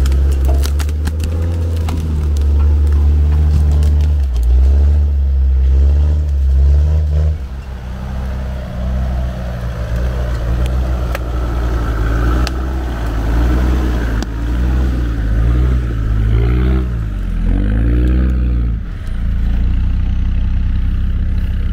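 Off-road 4x4's engine pulling at low revs over rough ground, the revs rising and falling several times, with a few knocks and rattles in the first couple of seconds.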